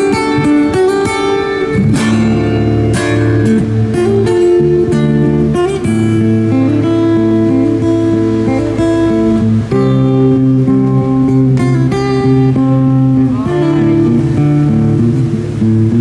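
Solo acoustic-electric guitar played fingerstyle: a plucked melody over ringing bass notes, with a few sharply struck chords.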